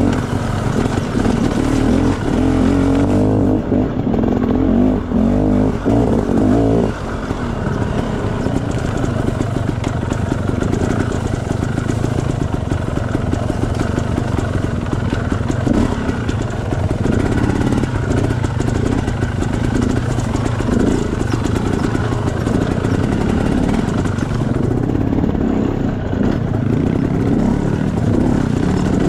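Motorcycle engine running continuously while being ridden, its revs shifting in the first few seconds and then holding fairly steady.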